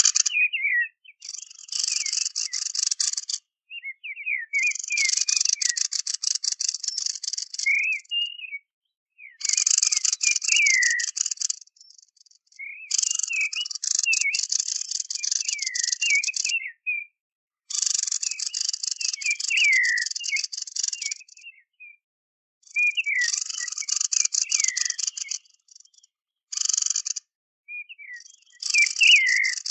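Bird calls played back as a hunting lure: repeated dry, rattling churrs, each lasting a second or two, with short swooping whistled notes between and over them.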